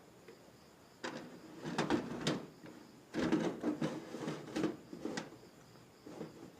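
Metal clatter and scraping of a drive being slid into a desktop PC case's drive bay, in two bursts of knocks and rattles about a second apart, with a last small knock near the end.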